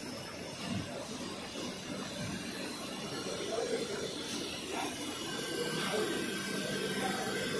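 Film rewinder machine running steadily, its printed plastic film web travelling over the rollers: an even running noise with a steady hiss.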